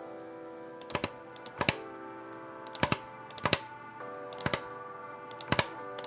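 Computer keys clicking in quick pairs and small clusters, about six times, over background music with sustained chords.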